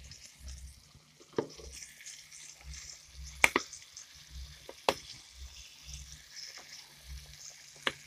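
A flour-dredged pork chop frying in shallow oil in a stainless steel pan, with a steady sizzle. Four sharp clicks cut through it, the loudest about three and a half seconds in.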